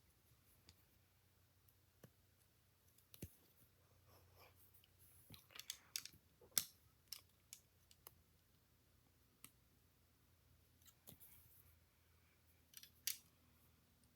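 Faint, scattered clicks of plastic Lego bricks being handled and pressed together, with a small cluster of clicks around the middle and another couple near the end.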